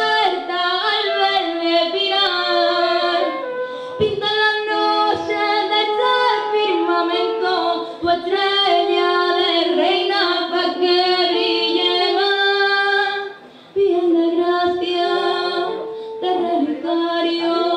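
Several women's voices singing a slow song in close harmony, with no instruments heard. There is a brief break in the singing about three-quarters of the way through.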